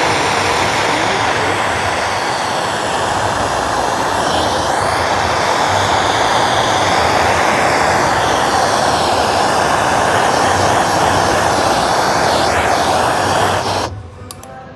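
Gas torch flame roaring steadily as it heats the aluminum rim to drive out moisture before welding. It cuts off suddenly near the end.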